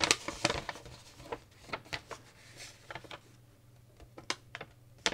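Paper leaflets being handled: scattered light rustles and taps, over a faint steady low hum.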